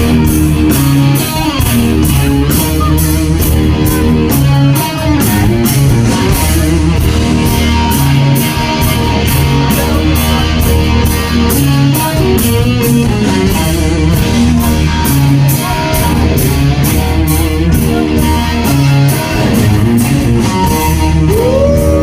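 Live rock band playing an instrumental stretch: electric guitar over bass and drums, with cymbal hits keeping an even beat. Near the end a guitar note bends up in pitch and is held.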